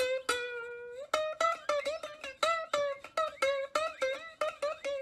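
Background music: a plucked-string tune of quick picked notes, about four a second, with one longer held note near the start.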